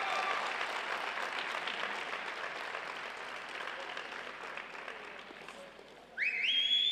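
Audience applause in an ice arena, the clapping dying away over several seconds. Near the end a short rising tone cuts in.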